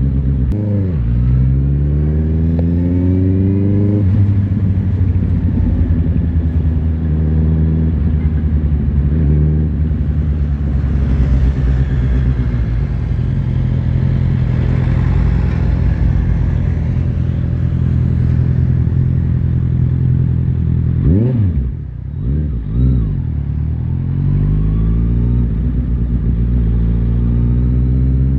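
Honda CBR650R's inline-four engine heard from the bike while riding: after a gear change near the start the revs climb, then hold steady for a long stretch. About three-quarters through the revs drop with a couple of quick blips, then climb again.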